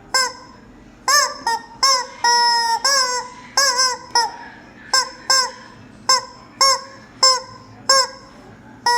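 Rubber chicken squeeze toy squawking over and over: about fifteen short, shrill honks at uneven intervals, a couple of them drawn out longer.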